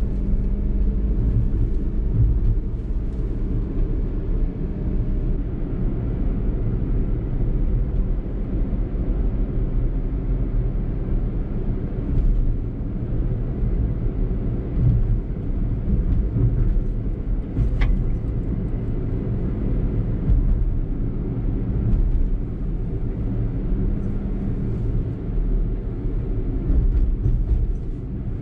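In-cabin sound of a Suzuki Alto kei car driving: the steady low hum of its small three-cylinder engine over tyre and road rumble.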